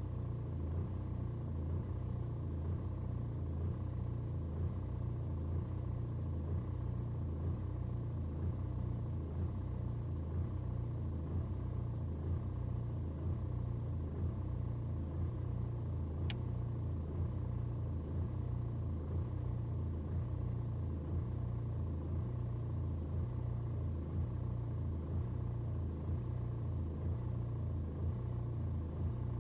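BMW 120d's N47 four-cylinder diesel engine idling roughly after a cold start, its low running note pulsing unevenly as the revs fluctuate. A single short click about sixteen seconds in.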